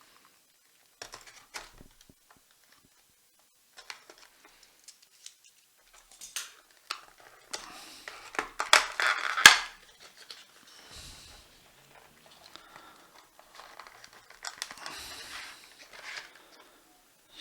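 A cardboard product box being opened and its paper contents handled. Scattered taps and clicks with rustling of paper and cardboard, loudest about halfway through.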